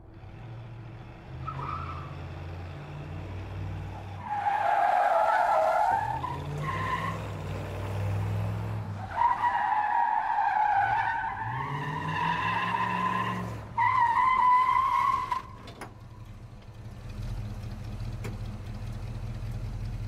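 Muscle car driving and skidding: the engine revs in rising surges while the tyres squeal in several long screeches through the middle. In the last few seconds the engine runs steadily at a low pitch.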